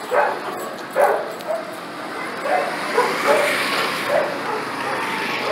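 Dogs barking in short, repeated barks, the loudest near the start and about a second in. From about two seconds in, a vehicle's sound swells under the continued barking as it passes.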